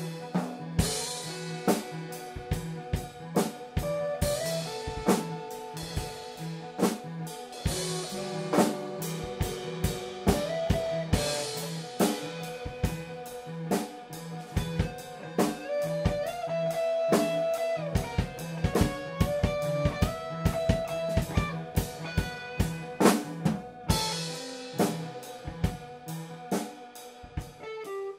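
Improvised instrumental jam recorded live: a drum kit plays a busy pattern on snare and bass drum with cymbal crashes every few seconds, under held and bending guitar and keyboard notes.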